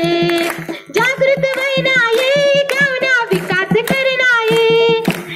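Children singing a song together over a steady percussive beat, with a short break between phrases about a second in.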